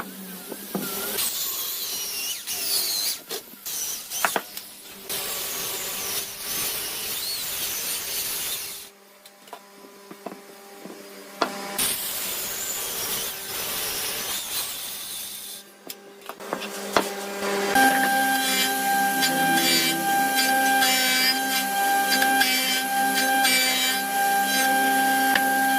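Power tools working wood in a run of short clips, with grinding, cutting and rubbing. In the last third a tool runs on with a steady high whine.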